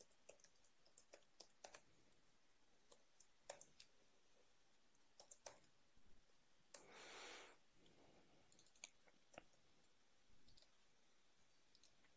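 Faint, scattered clicks of a computer keyboard being typed on, irregular in spacing, with a brief soft rush of noise about seven seconds in.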